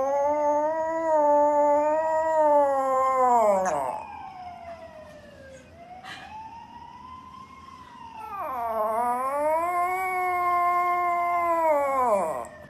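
Small poodle howling in long drawn-out howls that rise and fall slowly in pitch: one about four seconds long, a quieter wail, then a second long howl that starts low and climbs.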